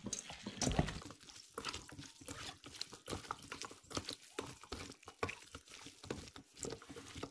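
A bare hand mixing and squeezing boiled chicken pieces and green chillies in a stainless steel bowl: a quiet, irregular run of wet squelches and small clicks.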